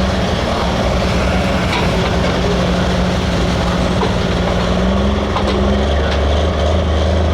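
Hot farm pulling tractor's diesel engine running loudly and steadily; its pitch creeps up and then falls away about six seconds in, leaving a deeper tone.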